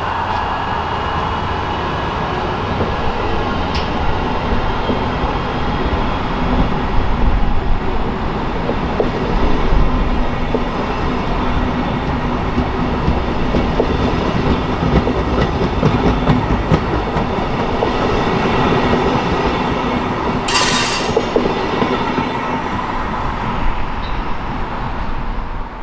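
Amtrak passenger train of Amfleet and Siemens Venture cars rolling past at speed: a steady rumble of wheels on rail. A brief sharp burst of high noise comes about twenty seconds in, and the sound falls away near the end as the last car clears.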